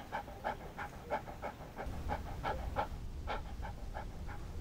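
A dog panting hard, quick breaths about three a second, with a low rumble underneath from about two seconds in.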